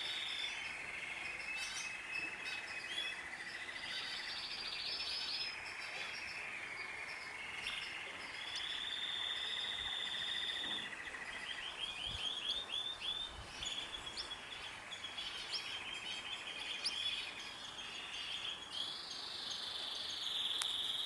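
A chorus of overlapping high-pitched trills and chirps from birds and insects: long buzzing trills several seconds each, interleaved with quick runs of short chirps.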